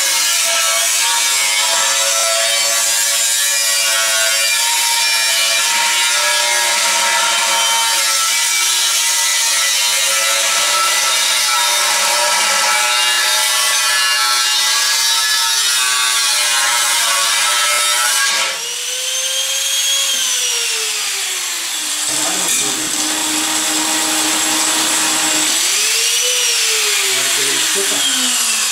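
Angle grinder cutting into the steel wall of a gas tank, a loud, steady motor whine under load with sparks flying. About 18 seconds in the cut stops; the motor's pitch rises and then falls as it winds down, and near the end it is run up and wound down once more.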